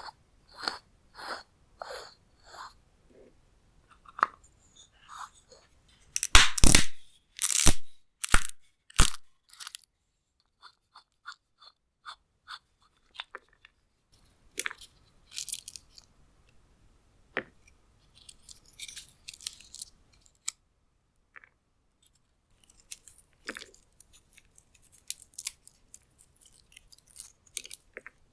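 Walnut shells cracking: sharp, separate cracks and crunches. The loudest cracks come in a cluster about six to nine seconds in, followed by lighter clicks and crackling of broken shell.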